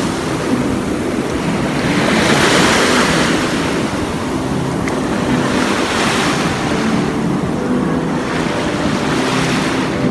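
Small waves washing up on a sandy beach, the surf swelling and falling back in slow surges about every three to four seconds, with wind rumbling on the microphone.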